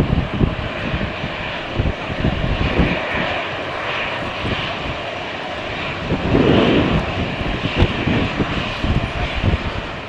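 Airliner engines running with a steady roar that swells about six seconds in, while gusts of strong wind buffet the microphone with low rumbling thumps.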